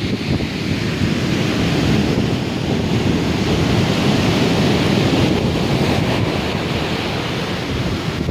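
Ocean surf breaking and washing on the beach, its hiss swelling and easing, with wind buffeting the microphone as a low rumble.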